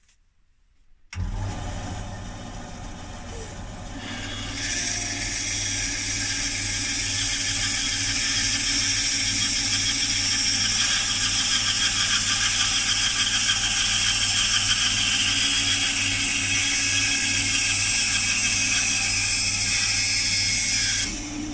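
LumberJack bandsaw switched on about a second in, its motor humming. From about four seconds its blade cuts straight across a wooden Lee Enfield rifle stock with a loud, steady rushing noise. The cutting noise drops away near the end, leaving the motor running.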